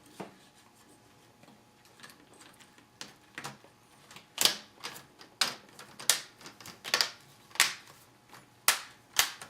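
Plastic screen bezel of a Sony Vaio laptop being pressed into place: a series of sharp, irregular clicks as its clips snap in around the screen, starting about three seconds in.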